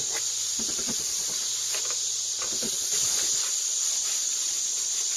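Cloth rag wiping polishing compound off a cast-aluminum table saw top by hand, a few faint rubbing strokes under a steady high hiss.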